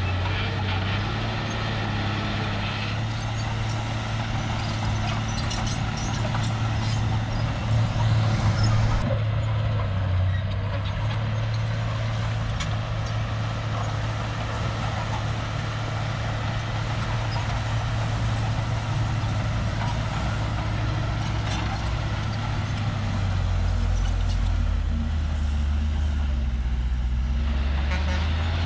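Crawler bulldozer's diesel engine running under load, its note rising and falling as it works. It is briefly louder about eight seconds in and settles into a deeper note near the end.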